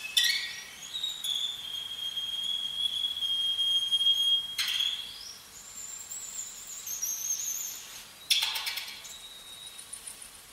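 Solo violin playing very high harmonics, the string touched with the fingernail: three separate gestures, each opening with a scratchy attack. The first holds a steady, thin high tone for about four seconds, the second a higher tone that wavers, and the third dies away.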